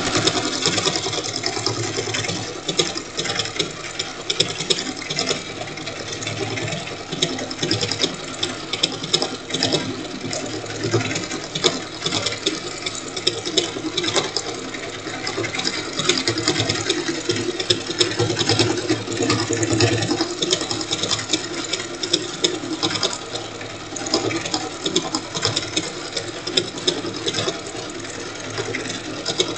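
Sewing machine running steadily, stitching a decorative stitch through quilt fabric with a rapid, even clicking of the needle.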